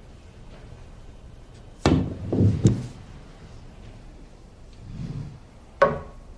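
Three sharp knocks, about two seconds in, just under a second later and near the end, with duller low thuds between them; the last knock rings briefly.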